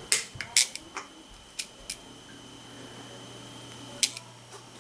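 Sharp clicks and snaps of an Atlas HO snap switch being thrown: the switch controller's lever pushed down and the switch machine snapping the points across. A cluster of clicks comes in the first two seconds, the loudest about half a second in, and one more about four seconds in.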